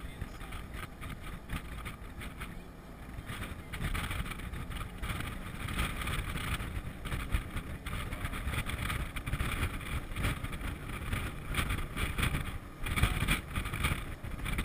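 Wind buffeting the microphone of an open-sided jeep driving along a paved road, over a steady rumble of engine and tyres. The buffeting grows louder about four seconds in.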